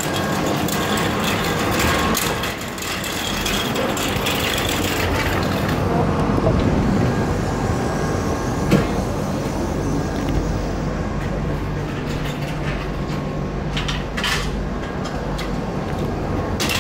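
Steady hum of a standing Z24500 double-deck electric train's onboard equipment, heard from the platform and then from inside the doorway, with a single knock about nine seconds in.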